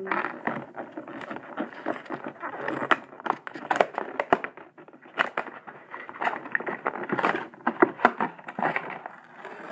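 A toy truck's box and packaging being opened by hand: a continuous run of crackling, scraping and sharp snaps.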